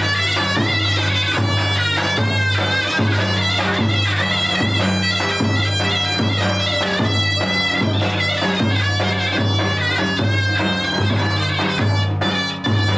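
Zurna (Turkish double-reed shawm) playing a lively halay dance tune, its shrill, ornamented melody over a steady low pulse.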